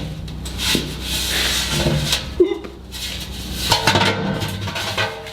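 Two halves of a cut steel well pressure tank being pried apart: metal scraping and rubbing, with several sharp knocks and clanks.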